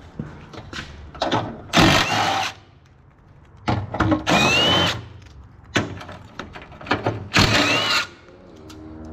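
A cordless power tool run in three short bursts, each about a second long, with a motor whine that rises in pitch during each burst, loosening underbody bolts. Small clicks and knocks of tools and metal parts come between the bursts.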